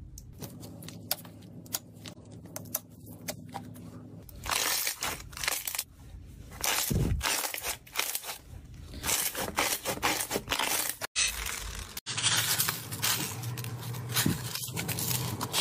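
Slime being pressed and kneaded by hand: a dense run of wet clicks, pops and crackles as air pockets squeeze out. Near the end, slime filled with foam beads crunches under the fingers.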